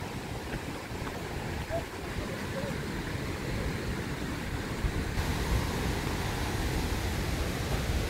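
Wind rumbling on the microphone outdoors, a steady rushing noise that grows slightly louder partway through.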